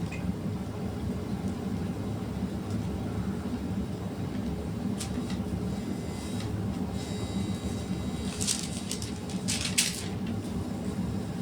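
Steady low background hum of room noise, with a few short crisp rustles near the end.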